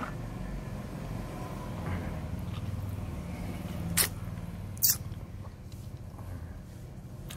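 Handling noise on a handheld camera's microphone as it is swung around: a low steady rumble, with two sharp knocks about a second apart near the middle.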